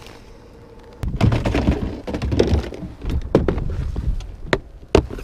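Wind buffeting the microphone in a low rumble from about a second in, with several sharp knocks and thunks.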